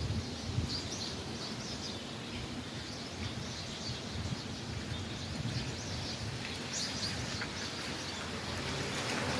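Wild birds chirping, many short high calls scattered throughout, over a steady low rumble of background noise.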